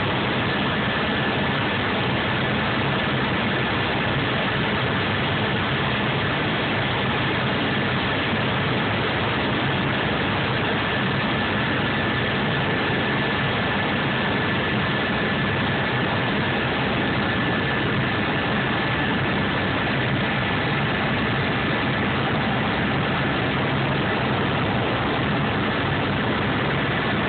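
Helicopter engine and rotor noise heard from inside the cabin in steady flight: an even, dense drone with a thin high whine running through it.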